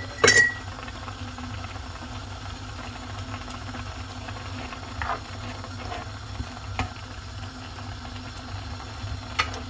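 A frog and vegetable curry simmers in a pan while a spatula stirs it. There is a sharp knock of the spatula on the pan just after the start, then a few softer scrapes and taps. A steady low hum runs underneath.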